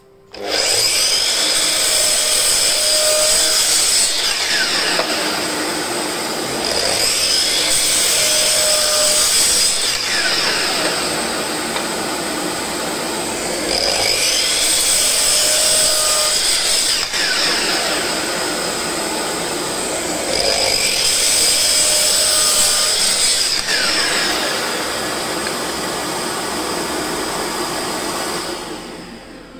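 Makita LS1219L 12-inch, 1800 W sliding compound miter saw running and cutting through a hardwood board. The motor starts abruptly and runs for nearly half a minute, with four louder stretches of a few seconds each as the blade bites into the wood, then winds down near the end.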